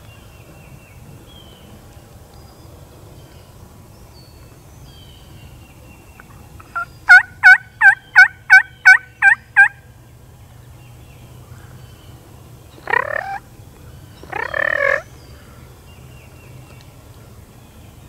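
A run of about eight loud, quick turkey yelps, then two quieter gobbles from a wild turkey tom a few seconds later.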